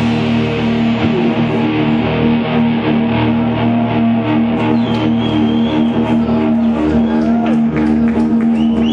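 Live rock band's electric guitar and bass holding a loud, sustained ringing chord with some scattered picked notes, the drums no longer driving: the song ringing out at its close.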